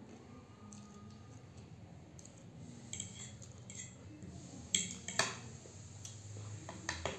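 Metal fork and spoon clinking and scraping against a plate of noodles: a few sharp clinks in the second half, the loudest a little before five seconds in.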